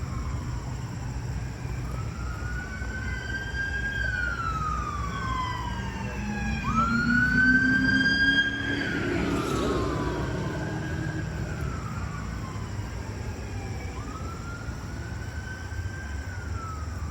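Emergency-vehicle sirens wailing, each sweep rising and then slowly falling, with two sweeps overlapping at times. A low rising drone and a louder stretch come about seven to eight seconds in.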